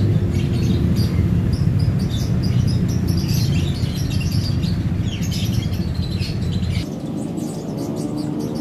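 Small birds chirping over a low steady rumble that cuts off about seven seconds in.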